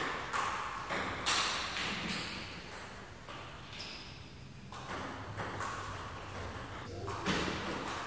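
A celluloid table tennis ball making sharp, irregularly spaced clicks as it strikes rubber paddles and the table, each one echoing in a large hall.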